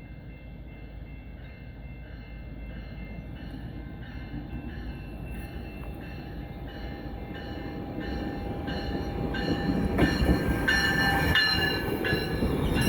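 A train pulling into the station, its rumble growing steadily louder, with high metallic squealing tones rising over it in the last few seconds.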